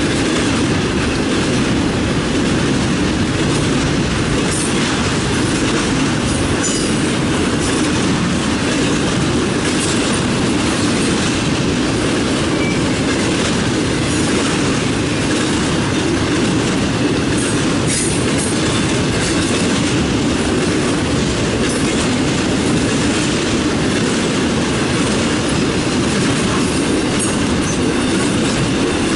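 Intermodal freight train of semi-trailers on flatcars rolling past: a steady, unbroken rumble of steel wheels on the rails.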